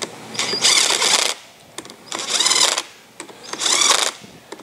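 Drill motor turning a socket in three short spurts, each under a second, snugging down the bolts that hold the magnets on a Ford Model T flywheel.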